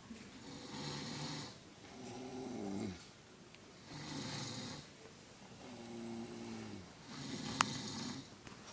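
Snoring in slow, regular breaths a couple of seconds apart, each snore a low, pitched rattle, with breathy hiss between them. A single sharp click sounds near the end.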